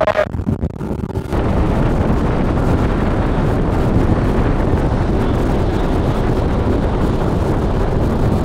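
A bass boat's 150-horsepower outboard running at top speed, about 34 mph, under heavy wind noise on the microphone. The sound is uneven and gusty at first, then becomes a dense, steady rush about a second in.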